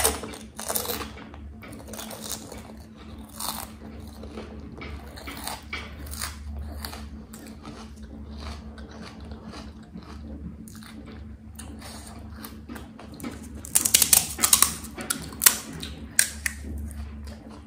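Close-up chewing of pani puri: wet mouth smacks and small crunches of the crisp puri shell. About fourteen seconds in comes a short run of loud, crisp cracks from the hollow puri shells, then one more sharp crack a second or so later.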